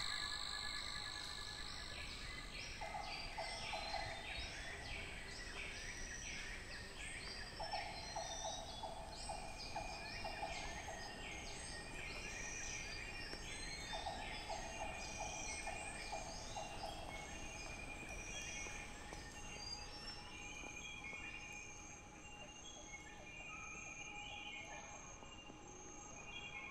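Rainforest chorus of calling insects and frogs: a fast series of repeated high chirps through the first half, a lower buzzing trill three times of a second or more each, and high, steady insect calls that take over in the second half.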